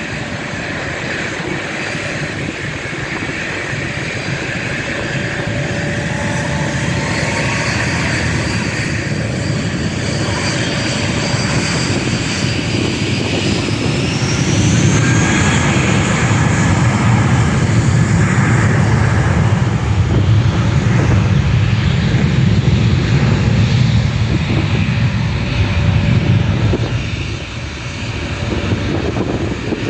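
Airbus A321 jet engines on takeoff power: a high whine that climbs in pitch about halfway through as a deep roar builds and dominates, then the roar drops away near the end as the aircraft passes.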